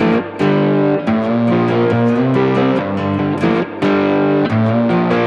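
Background music: an electric guitar track with distortion, playing a steady rhythmic pattern of notes.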